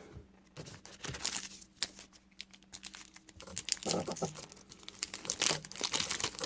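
Trading cards and their foil pack wrapper being handled, crinkling and rustling in irregular spurts with small clicks, busiest near the end.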